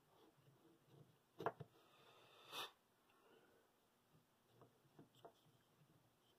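Mostly near silence while small plywood clock parts are handled and fitted on a tabletop: a sharp double click about one and a half seconds in, a short scrape about a second later, and a few faint taps near the end.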